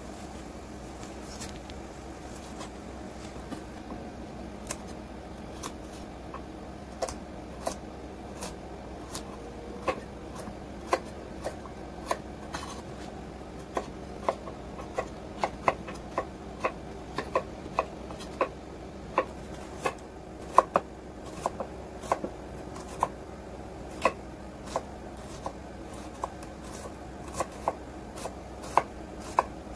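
Kitchen knife chopping food on a wooden cutting board: short sharp knocks of the blade hitting the board, a few at first, then one or two a second from about a third of the way in.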